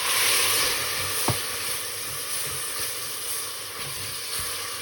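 Onion and ginger-garlic paste frying in desi ghee in a cooking pot, sizzling steadily. The sizzle flares up for about the first second as a little hot water goes into the hot fat, and a single knock, as of a spoon on the pot, comes a little over a second in.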